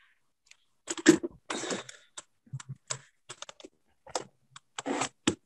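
Casement window crank operator being turned to close the sash: an irregular run of sharp mechanical clicks and short scrapes starting about a second in.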